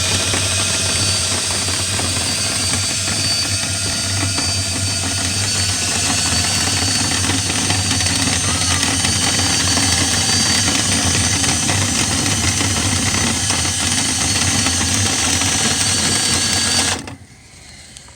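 A motor running steadily with a constant hum, then cutting off suddenly about a second before the end.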